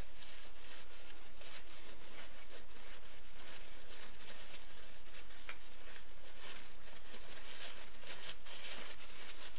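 Paper napkin rubbing and wiping over the bearings and oil seals of a Stihl MS-250 chainsaw crankshaft, degreasing them. The sound is a run of soft, irregular rubbing strokes.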